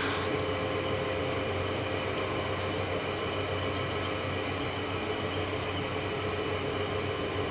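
Steady low hum with an even hiss: room tone.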